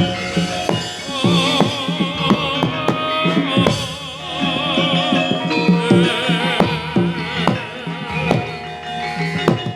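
Javanese gamelan music, the opening piece for a topeng mask dance: sustained metallophone and gong tones under sharp, frequent hand-drum strokes, with a high wavering melody line carried over the top.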